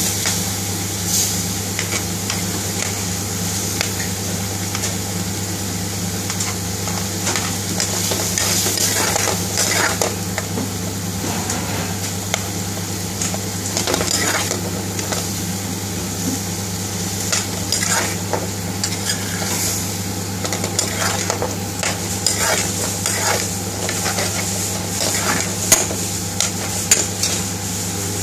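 Curry sauce sizzling in a metal frying pan on a gas hob while a metal spoon stirs it, scraping and clicking against the pan, over a steady low hum.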